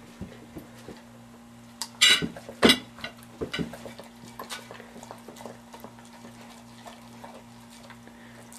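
A dog eating off a dinner plate: clinks and knocks of the plate and a fork as it noses and licks the food, the two loudest knocks about two seconds in and lighter clinks after. A steady low hum sits underneath.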